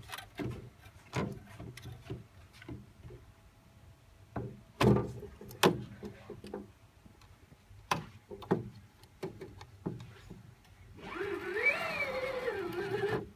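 Knocks and clicks of a TV's cooling board being handled and lifted out of the set, with a few sharper taps in the middle, then about two seconds of a wavering squeal that rises and falls in pitch near the end.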